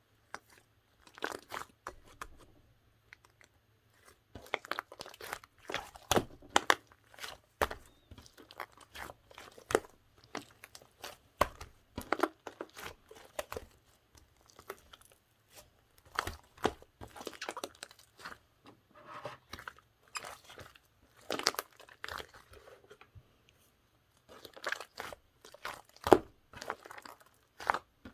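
Slime being pressed, squished and stretched by hand, giving irregular sticky clicks and crackles in quick clusters.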